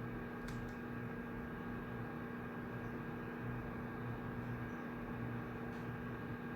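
Room tone of a shared study room: a steady electrical or ventilation hum over an even hiss. There are a few faint clicks about half a second in and again near the end.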